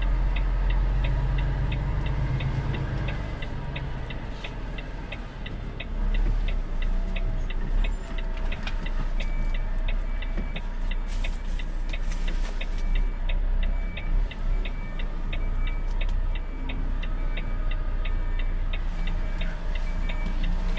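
Cab of a Volvo truck: the diesel engine runs low and steady while a turn-signal indicator ticks rapidly and evenly throughout.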